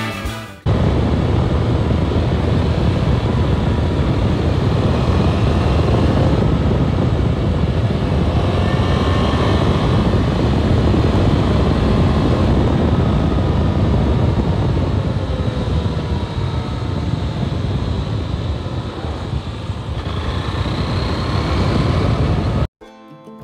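Motorcycle running along the road with heavy wind rush over the microphone; the engine's pitch rises and falls faintly under the wind. It cuts in sharply just after the start and cuts off sharply near the end.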